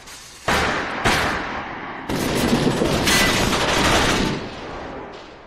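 Gunfire: two single shots about half a second apart, then a sustained volley of rapid gunfire starting about two seconds in and lasting about two seconds before dying away.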